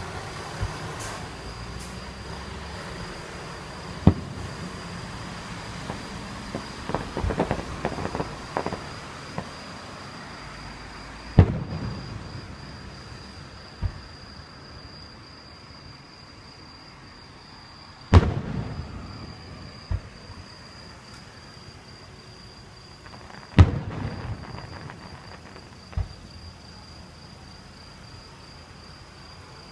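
Fireworks shells bursting one at a time every few seconds, the biggest booms each trailing off in a rolling echo, with a short run of crackling pops early on. A steady high chirring of crickets runs underneath.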